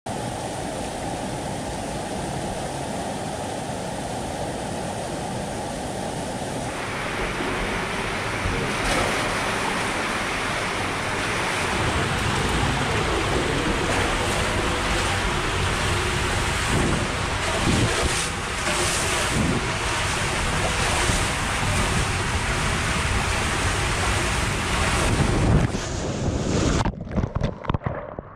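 Steady rushing noise for about seven seconds, then water rushing and splashing around a rider sliding down an enclosed Klarer tube water slide, louder as the ride goes on, with a few short knocks partway through. Near the end comes a loud splash into the pool, and then the sound turns dull and muffled underwater.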